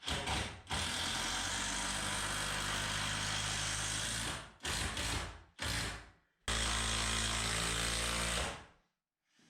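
Power drill running in bursts, driving screws: one long run of about three and a half seconds, two short bursts, then a run of about two seconds that stops shortly before the end.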